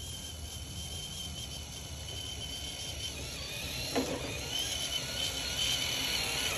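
Traxxas TRX-4 Sport RC crawler on rubber tracks, its electric motor and gears whining steadily as it crawls over a log, growing louder as it nears. A brief knock about four seconds in as it comes over the log.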